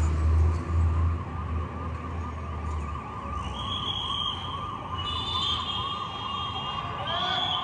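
Ambulance siren sounding a fast up-and-down yelp, about three sweeps a second, with a low traffic rumble under it for the first few seconds.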